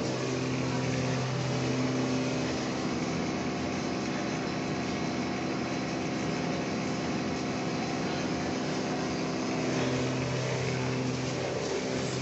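Steady mechanical hum: a low drone with several steady tones over a constant rushing noise.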